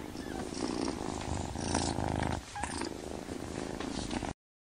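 Grey Scottish Fold kitten purring steadily; the sound cuts off suddenly near the end.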